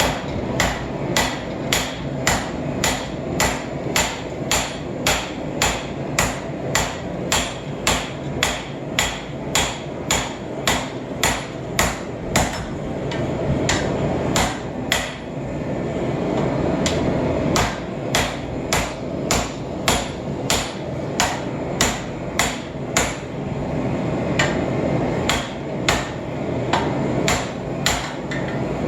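Hand hammer striking hot Damascus steel on the end of a 1-inch sucker rod used as an anvil, drawing the billet down: steady ringing blows at roughly two a second, with a short break about halfway through. A steady rushing noise runs underneath.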